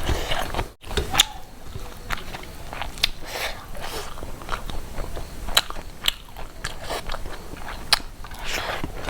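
Close-miked chewing and biting of a person eating, with irregular sharp wet clicks and smacks of the mouth.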